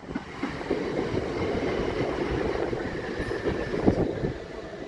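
Southern electric passenger train moving along the platform, a steady rumble of wheels on the rails with a faint high whine in the second half.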